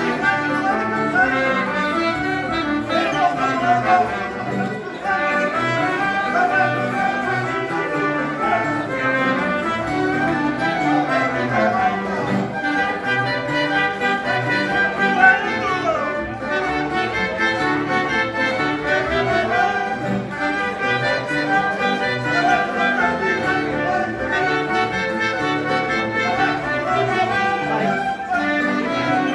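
Live folk band playing contradança dance music: a continuous melodic tune over a steady dance beat.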